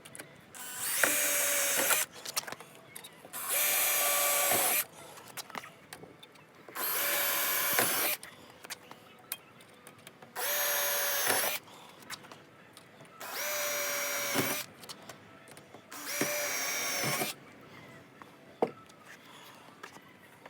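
Electric drill run in six short bursts of about a second each, spaced about three seconds apart, its pitch holding steady and then falling away as each burst ends.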